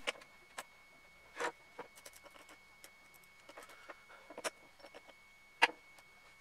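Small steel parts of an Interskol DA-18ER cordless drill's planetary gearbox clicking and tapping as they are set by hand into the plastic gearbox housing. The clicks come scattered and sharp; the loudest is near the end. A faint steady high whine sits behind them.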